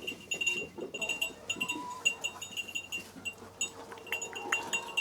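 Small metal livestock bells jingling in quick, irregular strokes, several a second, as animals move about.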